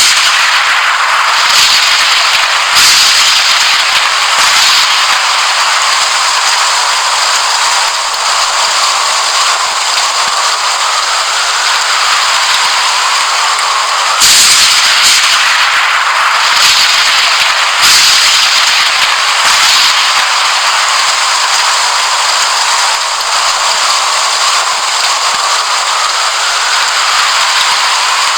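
Steady hiss of heavy rain with sharp thunder cracks. The cracks come in a cluster in the first few seconds and again in a run from about 14 to 20 seconds in.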